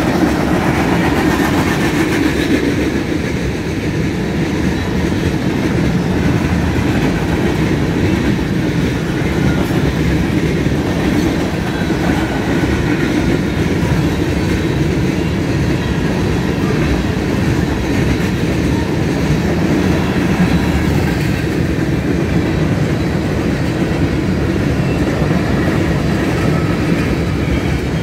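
Freight cars of a mixed freight train rolling steadily past close by, the wheels running over the rails in a continuous loud noise.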